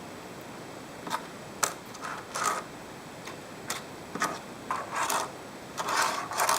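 Small 3D-printed plastic toy car handled on a hard surface: a string of irregular light clicks and short scrapes starting about a second in, busiest near the end.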